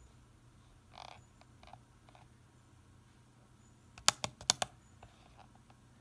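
Four sharp clicks in quick succession about four seconds in, from a hand pressing the push buttons of a small handheld digital oscilloscope. A softer rustle comes about a second in.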